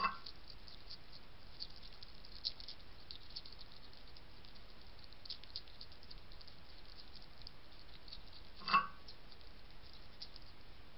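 A European hedgehog chewing dry kitten kibble: a faint, steady spatter of small crunching clicks, with two louder sharp knocks, one at the very start and one near the end.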